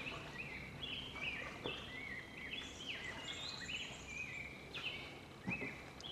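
Birds calling: many short, high chirps overlapping one another throughout. A kayak paddle splashes now and then as it dips into the river.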